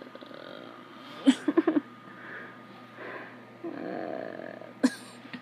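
Breathing close to a phone's microphone while the phone is handled: a quick run of loud knocks about a second in, soft breathy noise after it, and a sharp click near the end.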